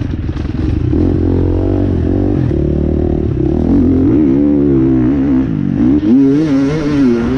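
KTM enduro dirt bike engine revving up and down as the throttle is opened and closed over a rough dirt trail, with a rattle of the bike over bumps.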